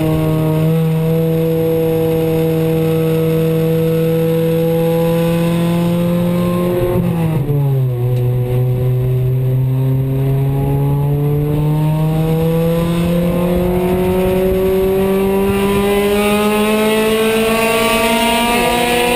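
Honda CRX Si race car's four-cylinder engine, heard from inside the cabin at high revs. The revs fall sharply about seven seconds in, then climb slowly for about ten seconds, and fall back again near the end.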